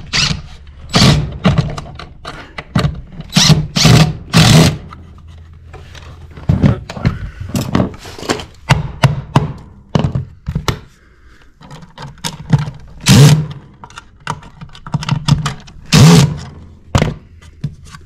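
A series of irregular knocks and clatters as tools, the electrical box and parts are handled.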